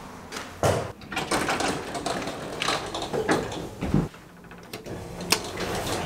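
Irregular knocks and clatter from a building's glass entrance door and then an elevator's doors and mechanism. The loudest knocks come just under a second in and again just past five seconds, with a low thump around four seconds.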